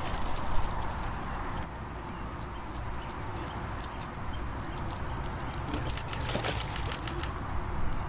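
Metal dog-collar tags jingling in irregular bursts as the dogs trot across the grass, over a steady low background rumble.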